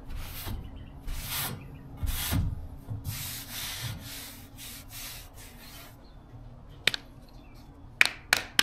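Hand sanding of car bodywork: sandpaper rubbing back and forth over the panel in separate strokes for about six seconds. Then a few short, sharp clicks or knocks.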